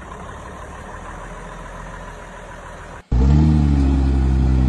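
A faint, steady engine rumble. About three seconds in, it switches abruptly to a lifted Jeep Wrangler's engine running loud and steady at a low pitch, dipping slightly, under load as the Jeep crawls up a rock ledge.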